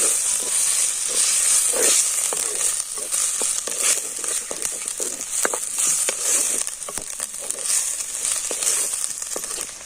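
Vegetables and a green paste of ground chilli, coriander, mint and coconut sizzling in hot oil in a pan, with a steady hiss. A spatula clicks and scrapes against the pan again and again as the mixture is stirred.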